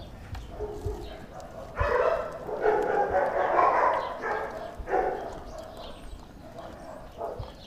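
A Doberman eating raw chicken and organs from a stainless steel bowl, with wet chewing and crunching that is loudest from about two to five seconds in.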